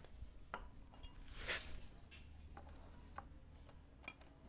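Faint handling noises: scattered light clicks and taps, with a soft rustle about a second and a half in, as a socket wrench is picked up and fitted onto a chainsaw's bar-cover nut.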